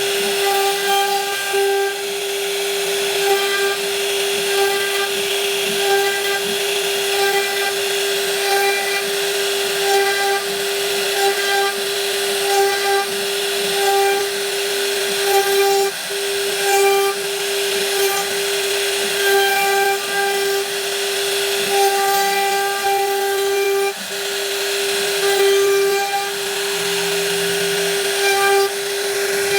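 Woodworking power tool running continuously with a steady hum, its noise swelling about once every second or so.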